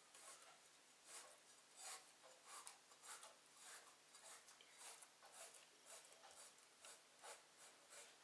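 Faint scraping strokes of a Chinese cleaver blade scoring a squid tube on a wooden chopping board, about two strokes a second.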